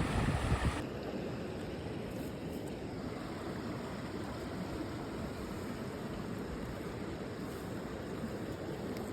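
Wind buffeting the microphone, cutting off abruptly under a second in, then a steady rushing hiss of wind and small waves on a loch shore.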